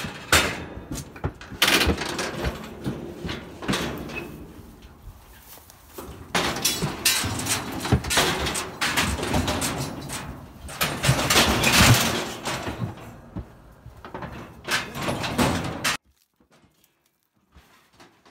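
Steel cattle squeeze chute clanging and rattling as a heifer is moved in and caught in the headgate: a run of metal bangs, knocks and thuds from the gates and levers. The noise cuts off suddenly near the end.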